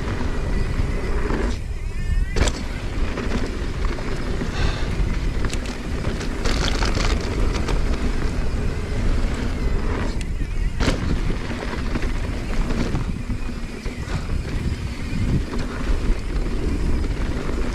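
Mountain bike rolling down a dirt trail: wind buffeting the camera microphone with a heavy low rumble, tyre and frame noise, and a few sharp knocks from bumps.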